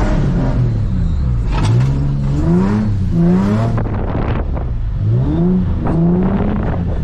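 Nissan 350Z's V6 engine revving up in several rising sweeps, dropping back between them, as the car is driven in drifts.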